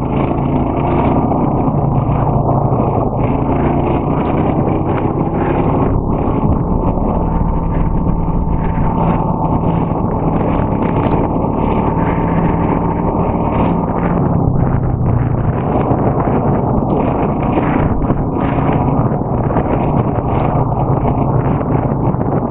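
ATV engine running as it is ridden, its pitch rising and falling with the throttle.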